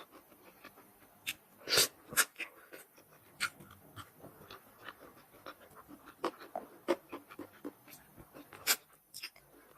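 Close-up eating sounds: irregular crunchy bites and chewing, with a few louder, sharp crunches.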